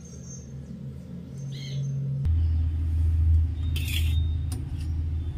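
A steady low rumble that deepens and grows louder about two seconds in. A short bird chirp comes about a second and a half in, and a brief scrape of a steel ladle against a steel plate comes near the middle.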